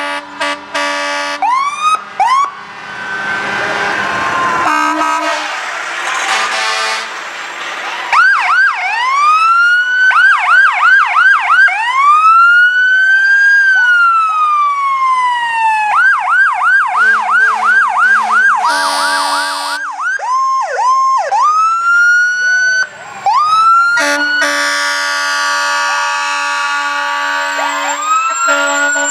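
Fire engine sirens sounding together: electronic sirens switching between a slow rising-and-falling wail and a fast yelp, overlapping one another, with steady air horn blasts near the start and a long one through the last few seconds.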